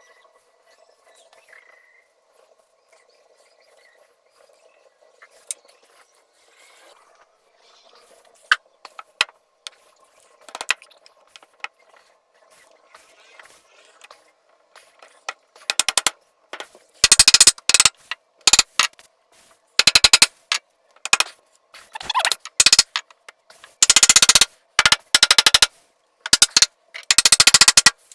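A camera shutter firing in rapid bursts of clicks, several bursts of about a second each, starting about halfway through. Before that there is only a faint steady hum.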